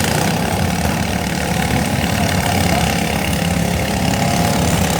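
Small lawn mower engines running steadily at a low, even pace.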